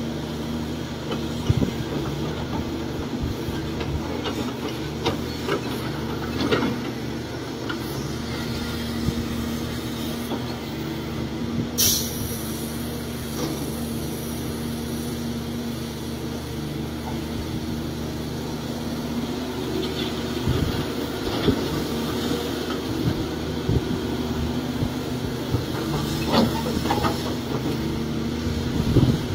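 Caterpillar 336 excavator's diesel engine running steadily while it digs and loads dirt into a dump truck, with a few scattered clanks and knocks from the bucket and dumped material, the sharpest about twelve seconds in.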